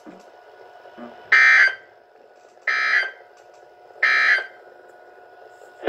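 Emergency Alert System end-of-message data bursts from a NOAA Weather Radio broadcast: three short, identical, harsh buzzing bursts, each under half a second and about a second and a half apart. They are the signal that the alert message has ended.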